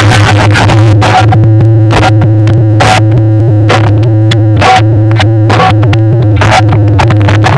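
Electronic DJ music blasting from a large bank of PA loudspeakers (a 30-box sound system), so loud that the recording is overloaded and distorted: a heavy steady bass tone under sharp, frequent beats.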